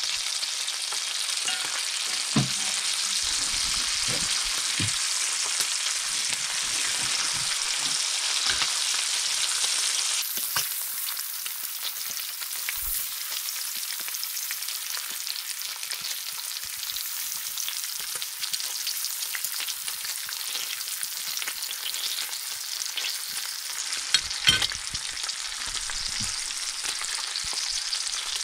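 Bacon strips sizzling steadily in hot fat in a metal frying pan, with a few short clicks and knocks of metal tongs against the pan as the strips are turned. The sizzle gets a little quieter about ten seconds in.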